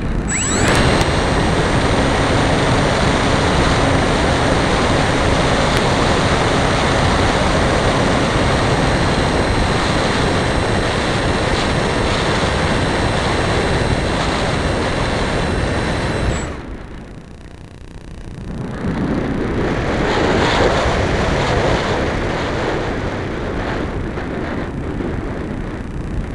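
Electric motor and propeller of a 2-metre RC glider running at steady power, heard from a camera on board. It starts with a steady whine about half a second in and cuts off suddenly after about sixteen seconds. After that comes the rush of air over the airframe as the glider flies unpowered.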